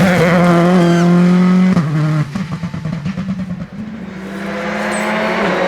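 Rally car engine held at high revs, then lifting off about two seconds in with irregular popping on the overrun, before the engine note builds up again.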